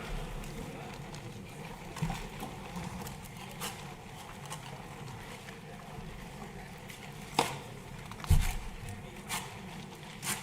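Room tone in a large hall: a steady low hum with a few scattered knocks and clicks, the loudest a dull thump about eight seconds in.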